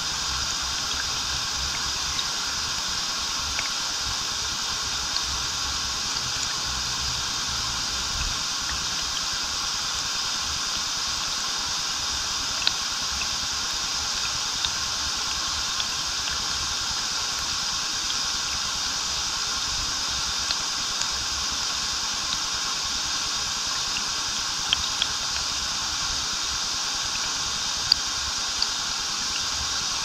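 Waterfall pouring steadily into a stream, a constant rushing wash of water with little sharp splashes now and then.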